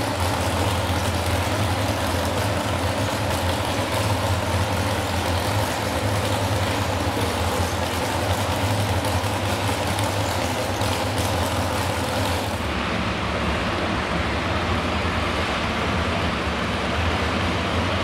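Modified pulling tractor engines idling with a loud, steady low drone and a wash of noise. About two-thirds of the way through, the high hiss drops away suddenly while the low drone continues.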